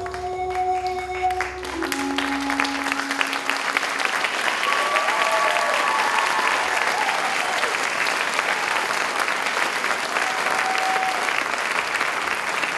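Audience applauding, rising in as the music's last held notes fade out in the first two seconds, then steady clapping.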